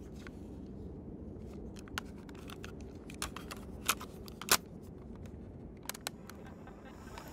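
Irregular sharp clicks and taps over a low, steady background hum, the loudest click about four and a half seconds in.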